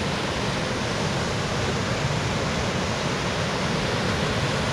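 Rain-swollen creek rushing steadily over a low spillway in white water, running high with floodwater from heavy rain the day before.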